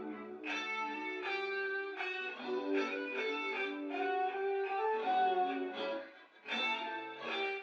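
Background music played on guitar, a run of plucked notes at a steady pace, briefly dropping away about six seconds in.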